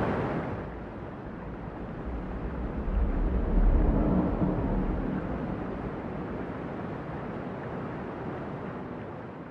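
Rushing, splashing water of the Trevi Fountain, quickly losing its hiss and slowly fading as it is heard from higher up. A low rumble swells about three seconds in and dies away again.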